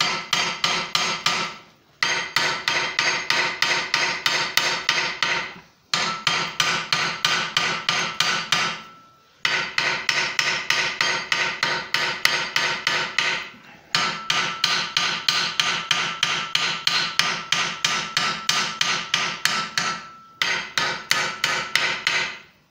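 Hand hammer striking a red-hot bent steel bar on an anvil to square up an upset right-angle corner. Runs of quick, ringing blows come about four a second, with short pauses between runs.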